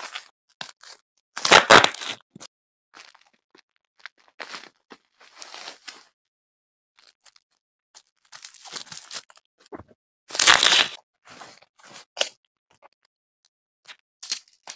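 Packing tape and a plastic wrapping bag being cut with scissors and torn open by hand: irregular crinkling and ripping. The loudest bursts come about two seconds in and about ten seconds in.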